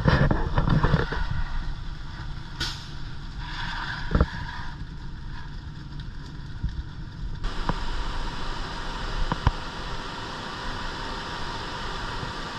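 Concrete mixer truck's diesel engine running steadily, with a few sharp knocks and scrapes.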